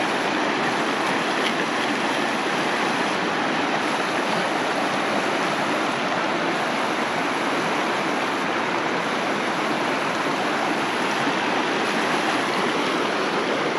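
Rushing mountain stream: water tumbling over rocks close by, a steady, even rush of noise throughout.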